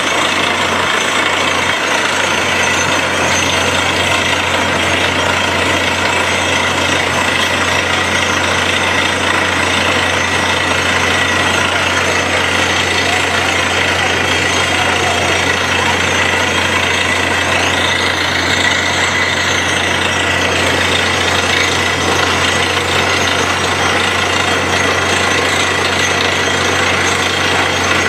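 Compressor borewell drilling rig drilling: a loud, steady mix of engine hum and rapid, even hammering from the drill, with compressed air blasting rock dust out of the hole.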